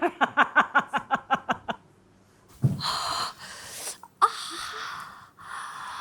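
A person's voice in a quick run of short laugh-like pulses for about two seconds, then heavy, breathy gasps and exhales.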